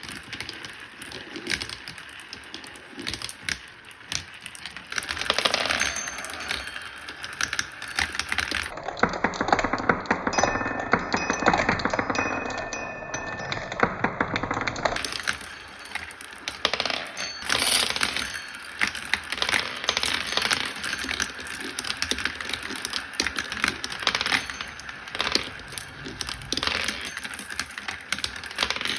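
Many marbles rolling and clattering down a marble run, a dense stream of clicks and rattles as they knock against the track and each other. A few short ringing tones sound in the middle.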